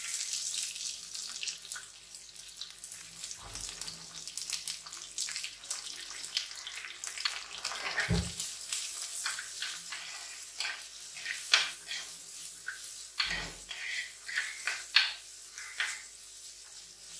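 Sliced onion sizzling in hot oil with frying green chillies, curry leaves and garlic: a steady high hiss. It is broken by scattered clicks and scrapes as the onion is spread and stirred, with a few louder knocks.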